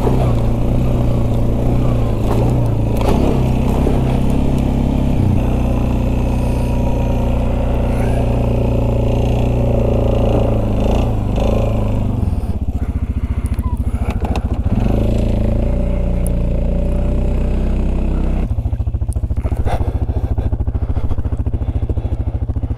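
Suzuki King Quad ATV's single-cylinder engine running steadily. About twelve seconds in it settles to a slower chugging idle, picks up again a few seconds later, and drops back to idle near the end.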